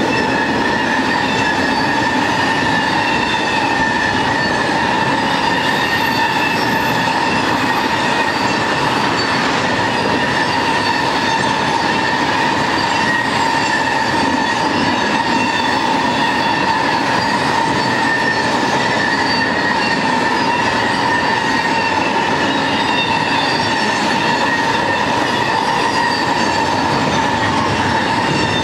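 Double-stack intermodal freight cars rolling past at steady speed: a continuous loud din of steel wheels on rail, with a steady whine held over it.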